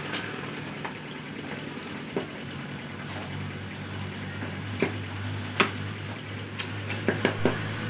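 Scattered sharp knocks of a butcher's cleaver striking a wooden chopping block while a whole chicken is cut up, the loudest about five and a half seconds in and a quick run of lighter taps near the end, over a steady low hum.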